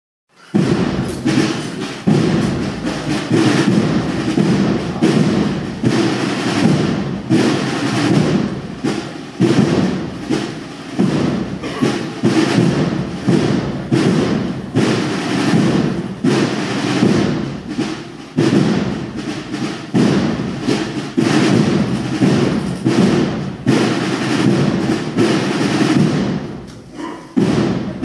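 Banda de cornetas y tambores (cornet and drum band) playing a Spanish procession march, with heavy drum strokes prominent throughout.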